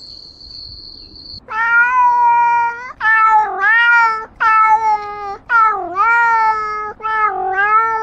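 Domestic cat meowing five times in a row: long drawn-out meows that dip in pitch and rise again. Before them comes a steady high beep lasting a little over a second.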